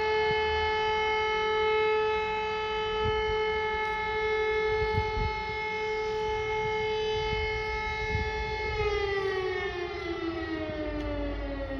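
Civil-defence siren sounding a steady, held tone as a warning to take shelter, then starting to wind down, its pitch falling steadily from about nine seconds in.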